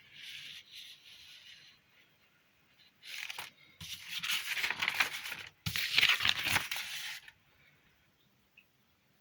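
Handling noise: rustling and rubbing that comes and goes, with a louder stretch of scraping, tearing-like noise from about three to seven seconds in.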